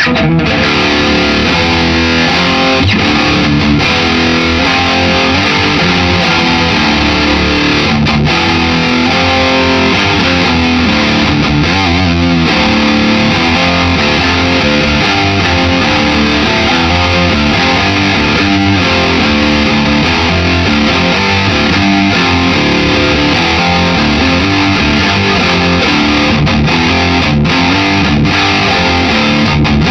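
Gibson Les Paul electric guitar played through an amp head into its cabinet, now connected with proper speaker cables in place of patch cables: a continuous run of changing notes and chords.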